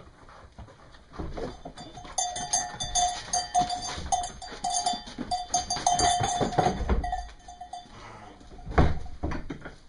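A ewe bleating in one long, broken call from about two seconds in until nearly eight seconds, over the shuffling and knocking of a crowded pen of sheep being handled. A single thump comes near the end.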